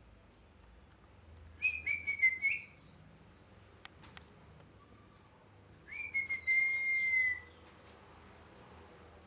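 Pet ringneck parrot making two bouts of whistled calls: a quick run of short notes about a second and a half in, then one longer whistle that falls slightly in pitch about six seconds in.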